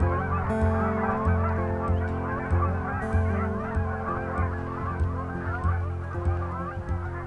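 A flock of Canada geese honking in flight, many overlapping calls at once. A steady, low, rhythmic beat of background music runs underneath.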